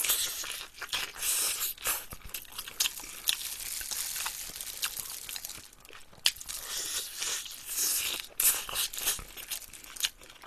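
A person biting into and chewing glazed fried chicken close to the microphone: a run of irregular crunches and clicks.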